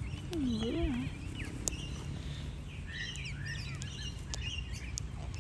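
Outdoor birdsong: a mix of short chirps and whistles from several birds, with scattered sharp clicks.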